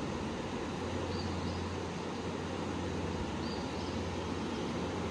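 Steady rush of Big Spring's fast-flowing outflow water, an even hiss-like roar with a low rumble under it. Faint high chirps come through about three times.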